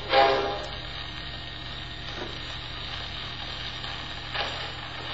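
A 78 rpm tango record on a phonograph ends on a final orchestral chord that dies away in the first half second. After it comes steady surface hiss and a low hum as the record keeps turning, with one faint soft knock near the end.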